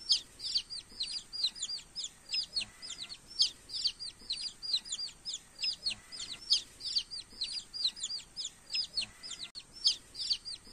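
Newly hatched chicks peeping: short, high chirps that slide downward in pitch, repeated about four times a second without a break.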